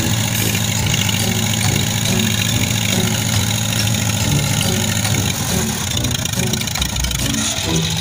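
Engine of a rice-hauling field vehicle running steadily close by.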